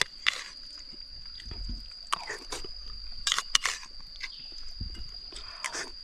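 A person eating close to the microphone: chewing and short crunching sounds, scattered irregularly, over a steady high-pitched tone.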